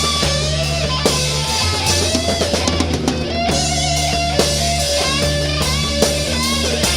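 Rock music played by a band: electric guitar carrying a bending melodic line over sustained bass notes and a steady drum-kit beat with kick-drum hits.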